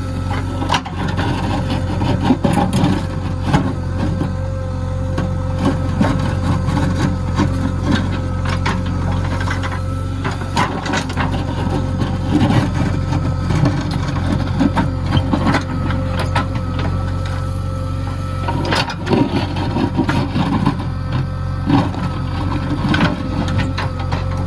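JCB backhoe loader's diesel engine running steadily, with frequent irregular knocks and rattles over it.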